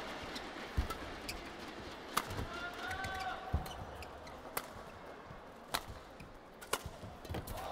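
Badminton rally: sharp racket strikes on the shuttlecock roughly once a second, with shoe squeaks and thuds of footwork on the court mat.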